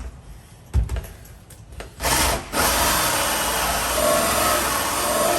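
Drill-driven hole saw cutting through a wooden door to bore the deadbolt hole, close to breaking through. A knock about a second in, then the saw starts about two seconds in, pauses very briefly and runs on steadily.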